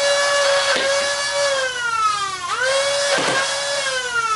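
Nerf Rapidstrike foam-dart blaster firing in three-shot burst mode. Its flywheel motors whine at speed while darts fire with sharp clacks about a second in. The whine then slides down as the flywheels coast. About two and a half seconds in, the flywheels spin up again for another burst, which fires and winds down near the end.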